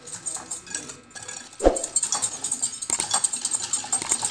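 Wire whisk beating curd and sugar in a glass bowl, its metal tines clicking rapidly and unevenly against the glass. One louder knock comes about a second and a half in.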